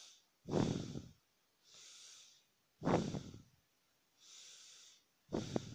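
A person breathing close to the microphone in a slow, even rhythm, three times: each time a soft hissing breath followed by a louder, heavier one.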